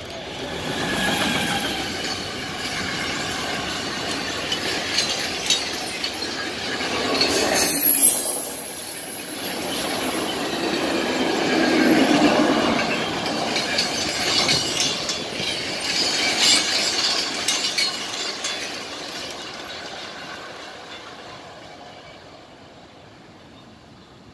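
Electric freight train passing: the locomotive comes up with a whine and is loudest about a third of the way in. The empty wagons then go by with a rattling clatter of wheels on the rails, and the sound fades away over the last few seconds.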